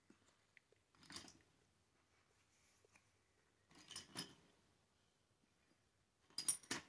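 Pogs clattering as they are set down on a stack on a metal tin lid, in three brief clusters of clicks: about a second in, around four seconds in, and a louder one near the end.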